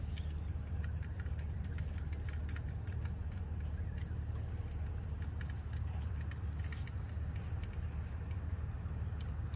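Crickets chirping in a steady, unbroken high trill over a steady low rumble, with a few faint clicks.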